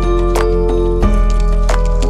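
Instrumental background music: a melody of held notes changing every fraction of a second over regular percussive hits and a deep steady bass.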